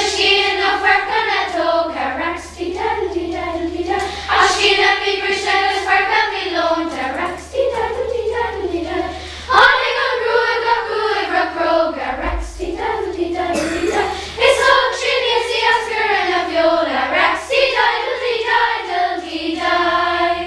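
Children's choir singing, phrase after phrase with short breaths between, the song coming to its end near the close.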